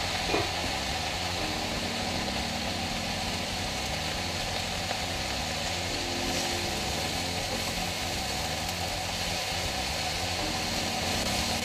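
Steady sizzle and hiss of diced vegetables and tomatoes cooking in a frying pan over a gas burner.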